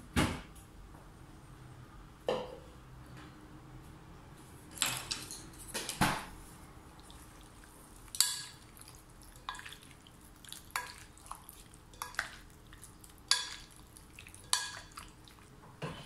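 Wooden spoon knocking and clinking against a glass salad bowl as cherry tomatoes are stirred with pesto, a separate sharp tap every second or two.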